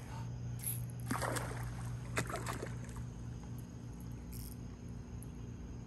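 A fish splashing at the water's surface below the dock, two short splashes in the first few seconds, over a steady low hum.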